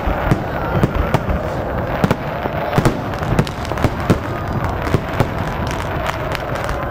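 Aerial firework shells bursting overhead in a rapid, irregular string of loud bangs.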